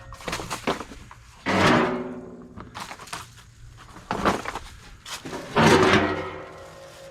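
Scrap metal being handled and dropped onto a pile: a series of clanks, the two loudest about a second and a half in and near the end, each followed by a short metallic ring.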